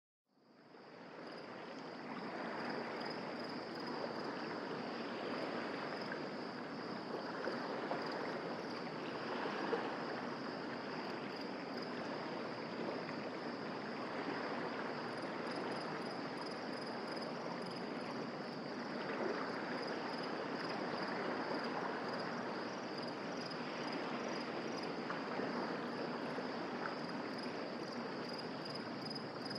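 Night-time ambience: a high, steady insect trill over a soft, even rushing wash, fading in over the first second or two.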